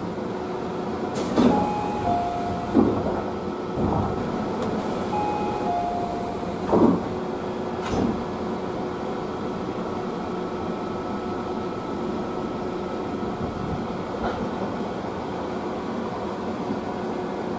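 Interior of a Tobu 30000 series commuter train car, with a steady hum throughout. A two-note chime, high then lower, sounds twice in the first seven seconds, among several sharp knocks.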